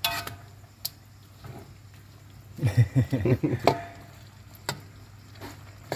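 A few sharp clicks of a utensil against cookware while the eel coconut-milk curry is served, with a short burst of voices about halfway through.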